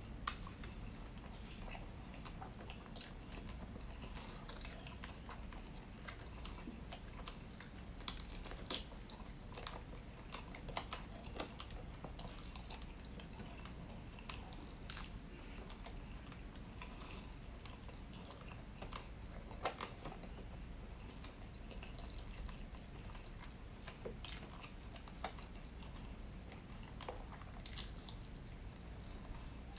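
Rotisserie chicken being pulled apart by hand and chewed close to the microphone, with irregular sharp clicks of mouth and meat.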